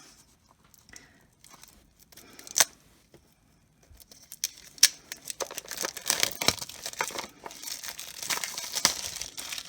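Packaging being handled and torn open: a few sharp taps in the first half, then from about halfway on a dense run of rustling and tearing.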